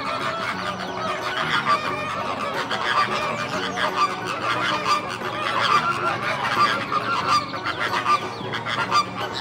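A flock of greater flamingos calling, many goose-like honks overlapping in a dense, continuous chorus.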